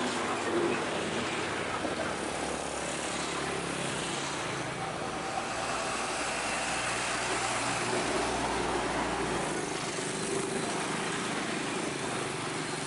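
Heavy diesel container trucks passing close by on a road with motorcycle traffic. The low engine drone of an approaching Isuzu tractor-trailer builds and peaks as it goes past, about eight to nine seconds in, then eases.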